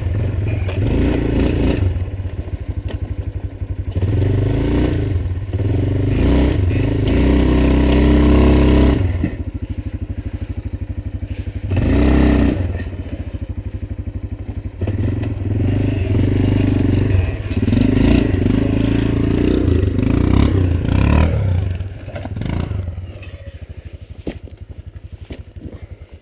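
Yamaha Kodiak ATV's single-cylinder four-stroke engine labouring at low speed over rough ground, the throttle surging and easing in repeated bursts. The engine fades away over the last few seconds as the quad pulls off.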